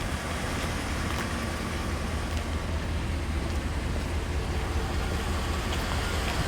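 Lifted Chevrolet Avalanche's V8 engine idling steadily, a constant low rumble.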